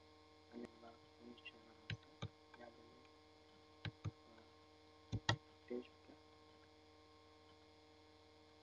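Steady electrical mains hum with three pairs of sharp computer mouse clicks, about two, four and five seconds in.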